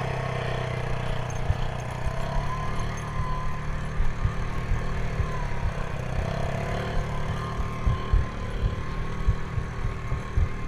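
Quad (ATV) engines running steadily while riding across beach sand, with a faint wavering whine that rises and falls. Wind and bumps knock on the back-mounted action camera's microphone in frequent short low thumps.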